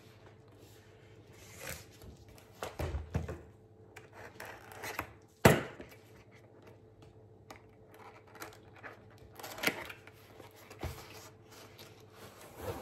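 A cardboard box being handled and opened: scattered rubbing and scraping of cardboard, with a sharp knock about five and a half seconds in.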